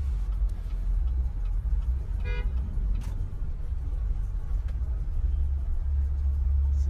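Low, steady rumble of a car heard from inside the cabin, with one short horn toot about two seconds in.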